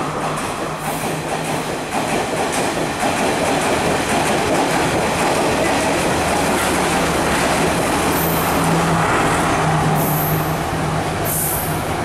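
Passenger coaches of a train running fast along the platform: a steady, loud rush of wheel and rail noise with clattering over the rail joints and a few brief high squeals in the second half.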